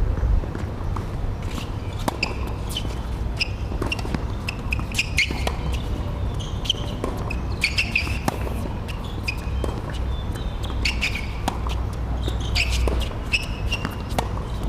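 Tennis rally on a hard court: sharp racket-on-ball hits and bounces every second or two, with short high-pitched chirps scattered throughout over a steady low hum.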